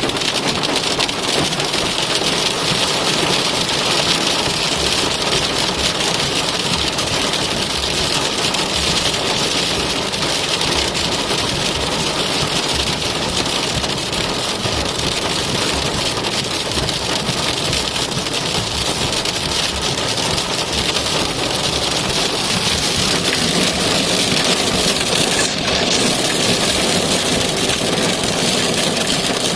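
Heavy hail pelting a car, a dense, steady clatter of countless small impacts.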